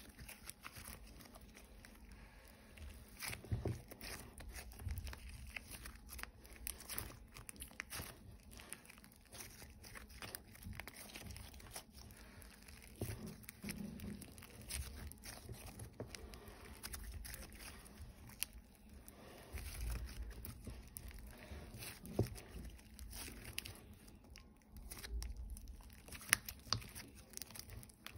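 Thick, sprinkle-filled slime being stretched, folded and squeezed by hand, giving a steady run of small crackles and clicks with soft low squelches.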